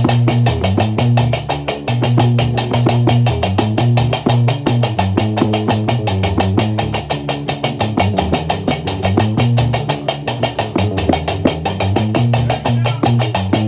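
Gnawa music: a guembri (sintir) plays a low, repeating bass riff, and several pairs of qraqeb, iron castanets, clack together in a fast, steady rhythm.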